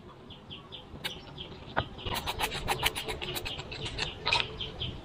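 A bird's short high chirp repeating about three times a second, joined about two seconds in by quick rasping, rubbing strokes.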